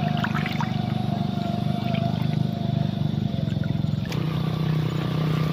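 Steady low drone of a running engine, its tone changing about four seconds in.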